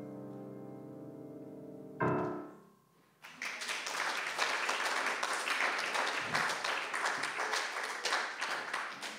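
Bechstein grand piano holding a fading chord, then a final chord struck about two seconds in that dies away. About a second later an audience breaks into applause, which thins out near the end.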